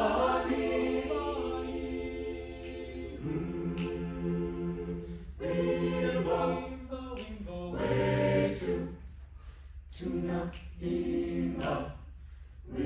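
Choir singing a cappella: held chords in several parts, phrase after phrase, with short breaths between them.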